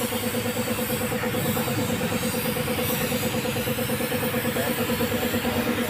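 Air compressor running with a steady, fast-pulsing hum while it supplies a paint spray gun, the gun's air hissing on top.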